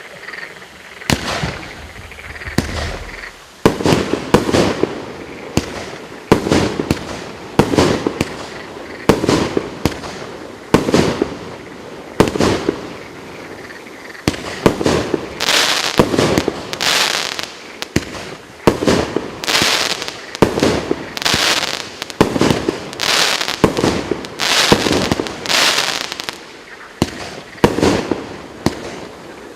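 PLATINUM SB 4903 firework battery (cake) firing shot after shot, about one sharp bang a second. Between about 15 and 26 seconds in, several of the shots trail off in longer hissing crackle.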